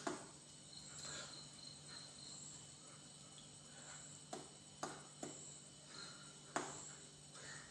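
Faint room tone with a steady low hum and a thin high whine, broken by a few soft clicks about four to five seconds in and once more near six and a half seconds.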